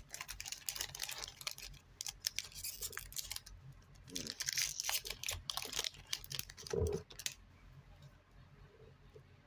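Trading-card pack wrapper being torn open and crinkled, a dense crackling with sharp clicks, which dies away about seven seconds in.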